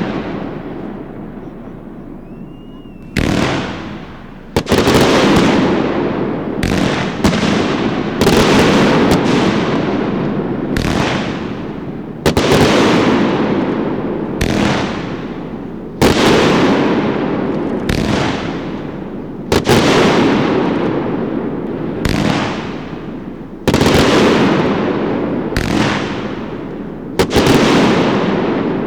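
Fireworks going off in a rapid series of about twenty sharp bangs, most of them a second or two apart, each trailing off slowly into the next. A brief lull comes before the barrage picks up about three seconds in.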